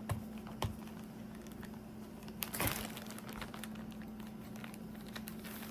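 Faint crinkling of a mailed package being handled, with a couple of soft clicks and a steady low hum underneath.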